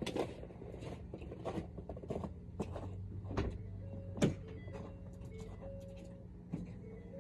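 A 2015 Ford F-350's 6.7 Powerstroke diesel not yet running, just before a cold start: scattered clicks and knocks, the loudest a sharp knock about four seconds in, then a faint steady whine as the ignition comes on.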